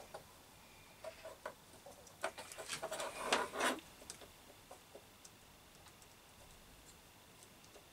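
Small clicks and rustles of wires being handled and crimped spade connectors pushed onto a washing machine motor's plastic terminal block. A cluster of clicks comes in the first few seconds, then it goes faint.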